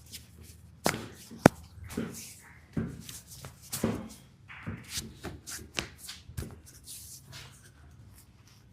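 Rustling and scattered soft knocks of hands and a body shifting on a treatment table, with a sharp click about one and a half seconds in.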